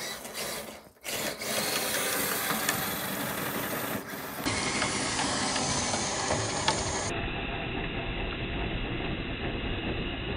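Small electric motor and gearbox of a Redcat Gen8 RC crawler whirring steadily as the truck drives through deep snow on chained tyres. The sound briefly drops away about a second in.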